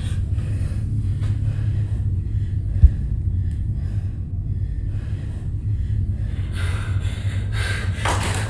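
Horror sound design: a steady low rumbling drone with a single deep thud a little under three seconds in, and a woman's breathing near the end.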